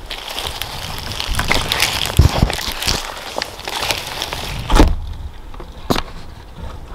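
Footsteps and clothing rustle of a person walking quickly through low leafy ground cover, with two heavy footfall thuds. The noise drops away after about five seconds, leaving one sharp click near the end.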